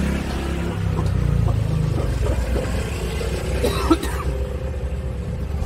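Steady low wind rumble on the microphone, with a man coughing.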